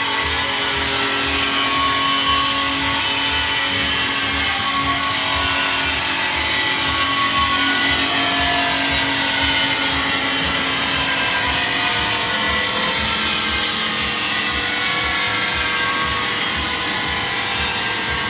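Machine for cleaning rust off square steel profile tubing, running and working on a tube: a steady, harsh scrubbing noise with a regular low pulse a few times a second underneath.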